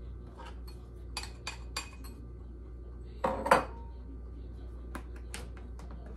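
A spoon knocking and scraping mashed banana out of a small bowl into a mixing bowl: a run of light clicks in the first two seconds, a louder knock about three and a half seconds in, then a few more clicks.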